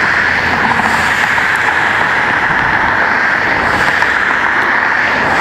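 Steady traffic noise from cars on a busy highway, an even hiss of tyres and engines.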